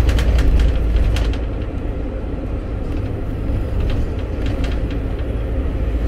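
Inside a moving London red double-decker bus: steady low rumble of the engine and road, with short rattles and clicks in the first second or so and again about four seconds in.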